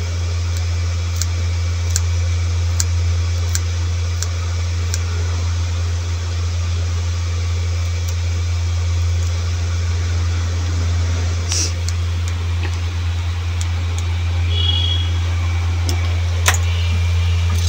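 Scissors snipping fresh coriander, a short sharp snip about every 0.7 s for the first five seconds and a couple of louder clicks later, over a loud steady low hum.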